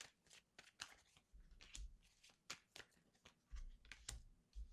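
Tarot cards being shuffled and handled: faint, scattered card flicks and rustles, with a few soft low bumps of the deck against the table.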